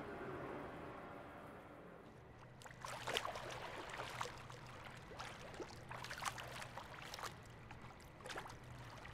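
Faint splashing and lapping of pool water as a swimmer does backstroke. The arm strokes make irregular small splashes from about two and a half seconds in.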